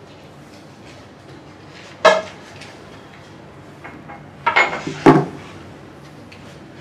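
Sharp knocks and clinks of hard objects being handled and set down: one about two seconds in, then a quick cluster of clatter near the five-second mark, the last hit the loudest.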